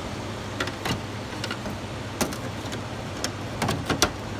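Vintage Cool Zone window air conditioner's fan running steadily on high, with a string of sharp plastic clicks and knocks as the air filter is pushed back into place, most of them in quick succession near the end.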